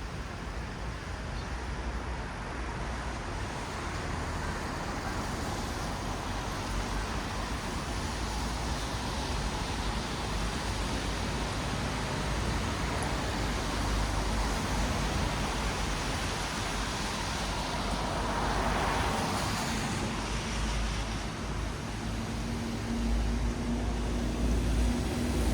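Traffic on a wet city road: a steady hiss of tyres on wet asphalt with vehicles passing, one swelling past about three-quarters of the way in. Near the end an engine hum grows louder as another vehicle approaches.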